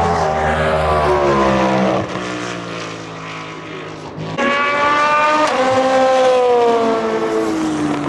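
Race cars passing at speed, one after the other. The first car's engine note falls in pitch and drops away about two seconds in. About four seconds in the next car arrives suddenly and loud, and its note drops sharply as it goes by, then keeps falling as it moves away.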